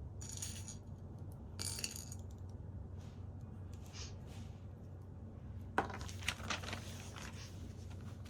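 Small hard plastic pieces, LEGO bricks, clicking and rattling as they are handled: a few scattered clinks, then a denser flurry of clicks about six seconds in, over a steady low hum.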